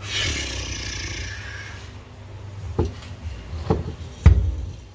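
A rushing hiss for about two seconds, then three sharp knocks a little under a second apart, the last a heavy thump: hard parts and tools being handled in a garage during a transmission install.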